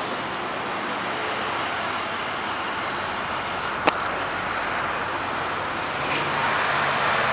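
Street traffic: a steady rush of cars and trucks driving past, with one sharp click about four seconds in.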